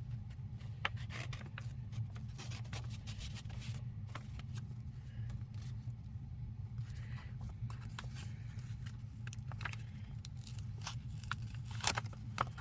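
Paper envelopes and sticker sheets rustling and crinkling as they are handled and opened: a run of short crackles and scrapes, sharpest near the end, over a steady low hum.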